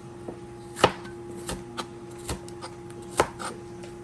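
Knife slicing a bell pepper on a cutting board: a series of irregular chopping strokes, about seven, the loudest about a second in and near the end.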